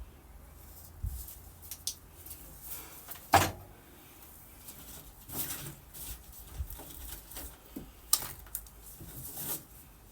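Intermittent knocks, clunks and scrapes of objects being handled by hand, with two sharp knocks, one about a third of the way in and another near the end.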